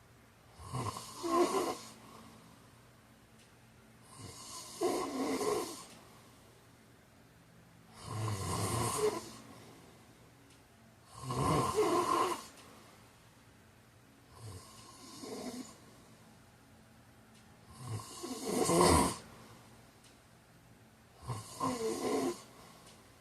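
A sleeping person snoring: seven snores, one every three seconds or so, each lasting about a second, with quiet between them.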